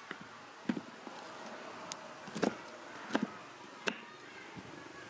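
Kitchen knife chopping through a whole pineapple, peel included, on a cutting board: about five sharp, separate cuts at an uneven pace.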